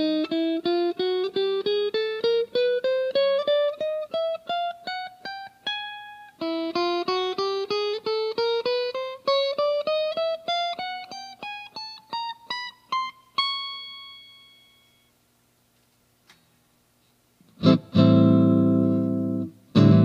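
Tokai SilverStar SS-36 electric guitar playing two runs of fast picked single notes that climb steadily in pitch, the last note left ringing out. After a pause of about two seconds, a loud strummed chord rings, and more chords are struck near the end.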